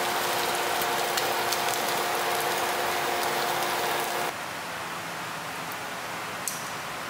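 Tocino (sweet cured pork) sizzling and crackling in a frying pan over a steady hum as it is turned with tongs. The sizzle cuts off suddenly about four seconds in, leaving a softer hiss and a light click of tongs on a plate.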